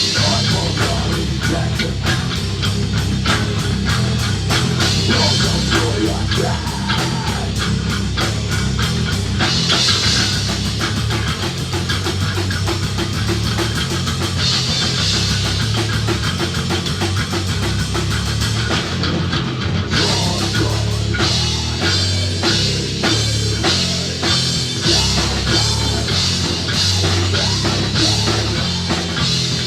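A live heavy rock band playing: distorted guitars over a drum kit keeping a fast, steady beat.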